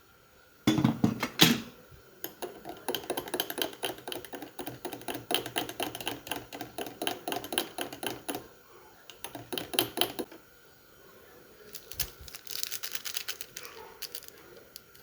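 Rapid knife chopping on a cutting board: quick runs of sharp taps that stop for a couple of seconds and then start again, after a few heavier knocks at the start.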